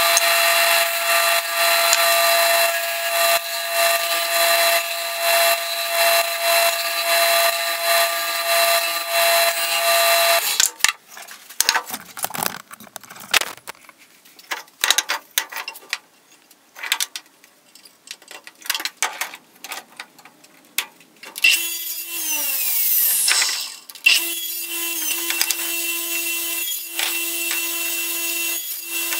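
A belt/disc sander runs steadily with a block of wood being sanded on its disc, stopping abruptly about ten seconds in. Scattered knocks and clicks of wooden pieces being handled follow. In the last several seconds a radial arm saw's motor runs, falls in pitch as it winds down once, then runs steadily again as pieces are cut.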